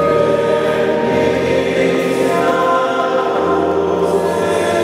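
Church choir singing, several voices holding long, steady notes together.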